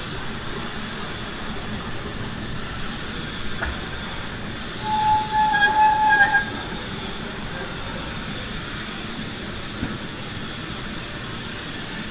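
Steady industrial machine noise with a thin, high-pitched whine that fades in and out, and a shorter, lower squeal about five seconds in.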